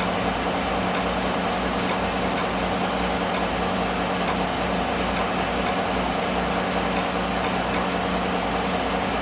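2014 Chevrolet Silverado's engine idling steadily, a constant low hum with faint light ticks over it.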